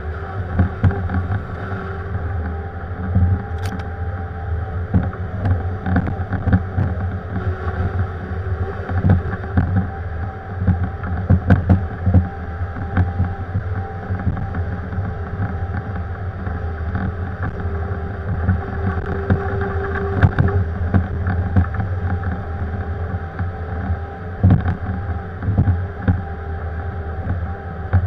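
Diesel engine of a Bobcat compact machine running steadily under work, with frequent short knocks and clanks throughout.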